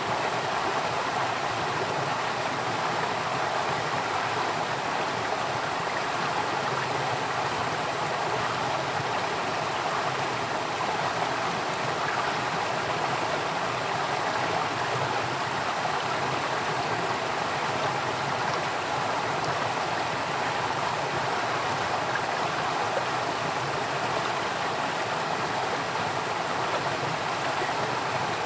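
Running water flowing steadily, an even rush that holds without a break.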